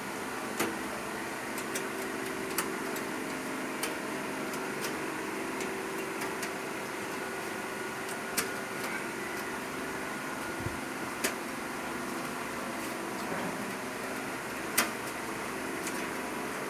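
Sharp metallic clicks and taps, several scattered and irregular, the loudest near the end, as a stamped-metal motherboard I/O shield is pushed into a PC case and its clips snap into place. A steady hum runs underneath.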